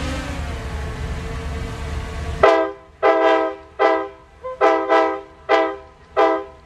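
Train running with a steady low rumble, then a diesel locomotive's multi-chime air horn sounding about seven short blasts in a quick rhythm, starting about two and a half seconds in.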